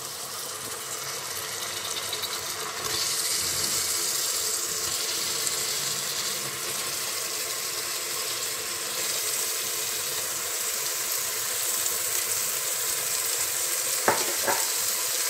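Liver pieces, sliced onions and ginger-garlic paste sizzling in hot mustard oil in a pressure-cooker pot, a steady frying hiss that grows louder about three seconds in. Two quick knocks come near the end.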